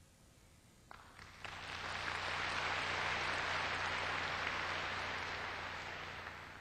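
Audience applauding. The clapping swells about a second and a half in, holds steady, then fades out near the end.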